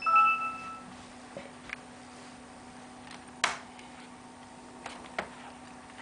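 A short electronic tone at one steady pitch sounds for under a second at the start, followed by a few light clicks over a faint steady hum.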